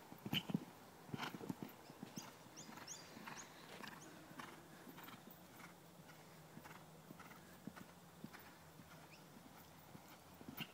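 Horse's hooves cantering on a sand arena, a run of soft thudding strides that are loudest in the first second or two and then grow faint as the horse moves off.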